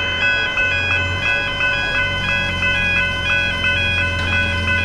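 Railway level crossing warning bells ringing a fast, evenly repeating two-pitch chime as the boom barriers lower, which signals an approaching train. A low steady hum runs underneath.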